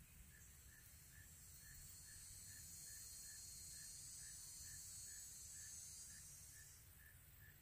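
Faint insect buzzing, high and steady, starting about half a second in and stopping near the end, over a soft chirp repeating about twice a second.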